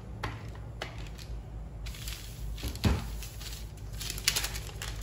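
A few light knocks and one dull thump, then parchment paper rustling and crinkling under a hand from about four seconds in.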